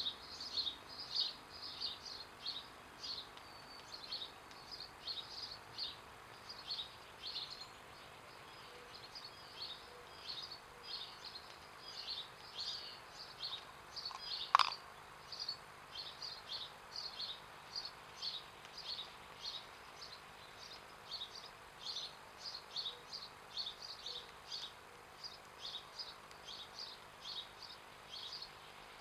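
Small birds chirping: short high chirps repeating about two to three times a second over a faint steady hiss. One sharp click about halfway through is the loudest sound.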